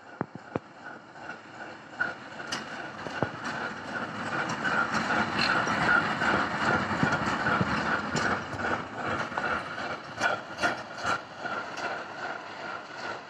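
ChME3 diesel shunting locomotive passing at low speed, its six-cylinder diesel engine running with a steady pulsing throb that grows louder to a peak about six seconds in and then fades. Sharp clicks from the wheels on the rail joints come through at intervals.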